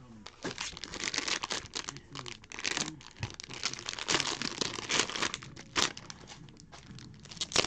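Foil trading-card pack wrapper being torn open by hand, with clear plastic wrapping crinkled as the contents are pulled out: a dense run of crackles and rustles.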